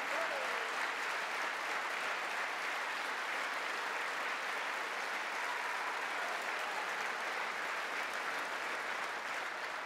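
A large audience applauding steadily, many people clapping at once in a sustained ovation.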